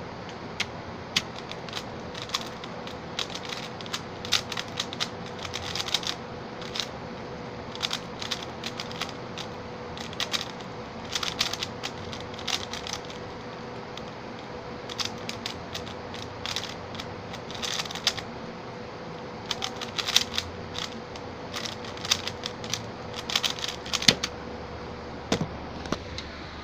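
Xin Lexin stickerless 3x3 speedcube being turned fast during a solve, its layers clacking in quick flurries with brief pauses between, over a steady faint hum.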